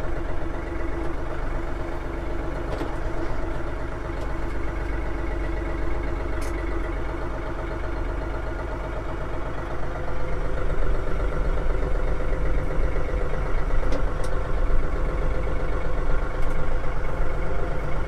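RK37 compact tractor's diesel engine idling steadily, heard from the operator's seat, a little louder from about ten seconds in. A few faint knocks come through it.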